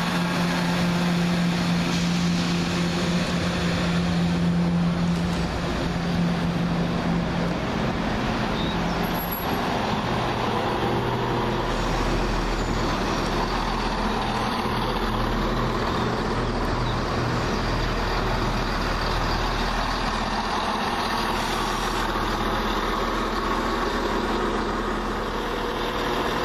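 Class 170 Turbostar diesel multiple unit's underfloor diesel engines running at the platform: a steady engine note for the first several seconds, then a lower, deeper rumble from about twelve seconds in.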